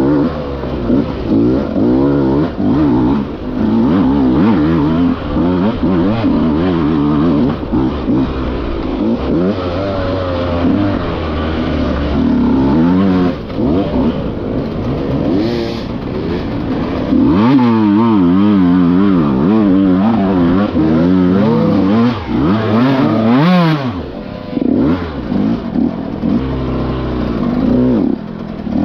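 Dirt bike engine revving up and down under constant throttle changes while riding a steep, rocky trail. Through the middle of the stretch the pitch wavers quickly with rapid throttle blips, with a few short drops as the throttle closes.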